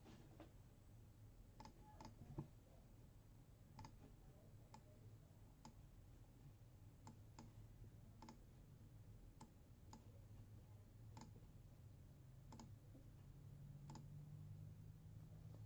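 Computer mouse clicking faintly, a single sharp click every second or so over near silence.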